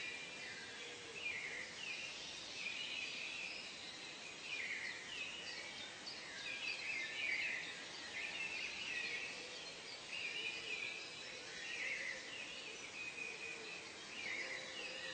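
Nature ambience of many birds calling over and over in short chirpy phrases, overlapping one another, over a constant background hiss.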